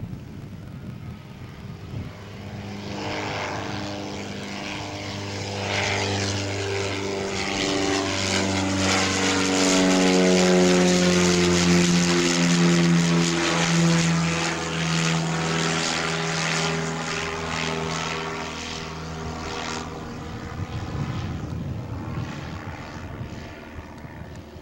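Piper PA-44-180 Seminole's twin Lycoming four-cylinder engines and propellers at climb power as the plane passes overhead after takeoff. The drone builds to its loudest about ten seconds in, drops in pitch as the plane goes by, then fades as it climbs away.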